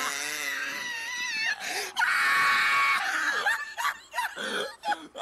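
A person laughing hard in high-pitched squeals, with one long held squeal about two seconds in, then short broken bursts of laughter.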